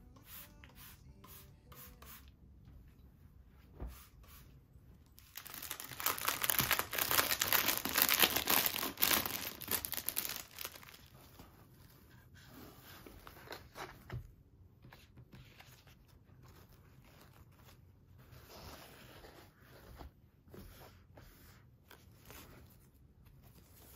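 A few short squirts from a trigger spray bottle at the start. Then clear plastic wrapping crinkling and crackling loudly for about five seconds as a package is handled. Softer rustling of a fabric gift bag and ribbon follows.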